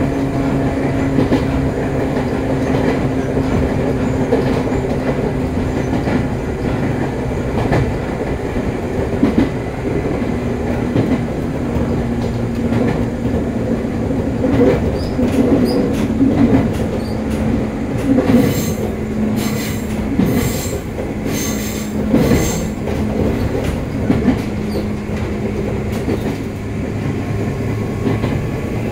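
Joshin Electric Railway electric train heard from inside the car while running: a steady motor and gear hum with wheels clicking over rail joints. About two-thirds of the way in comes a run of high-pitched squeals, about one a second, for some five seconds.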